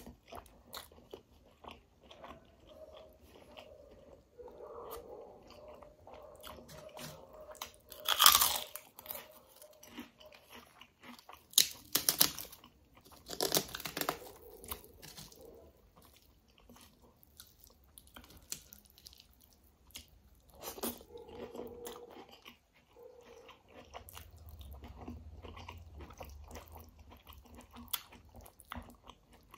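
Close-up mukbang eating sounds: chewing and mouth noises of kadhi chawal eaten by hand, with fingers mixing the rice and kadhi on a steel plate. A few loud crunchy bites stand out, the loudest about eight seconds in and two more a few seconds later.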